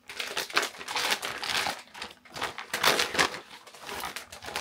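Clear plastic bag around a spool of PLA 3D-printer filament crinkling in irregular bursts as it is handled and unwrapped from the spool.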